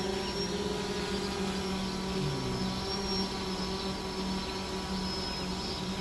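Outdoor ambience of insects trilling steadily at a high pitch over a low, steady hum, with a few faint chirps.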